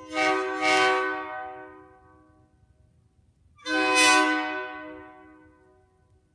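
1990s narrow-font Nathan K3HAR4 three-chime train horn sounded in short blasts: two quick blasts right at the start, then another about three and a half seconds in, each chord trailing off over a second or two.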